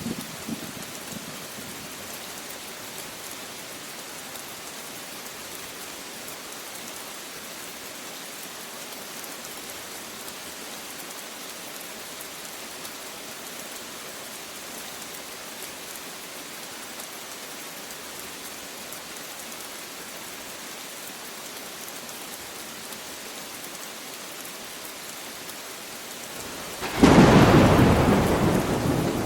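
Steady rain falling, an even hiss, until a loud thunderclap breaks in about 27 seconds in and rumbles on, slowly fading.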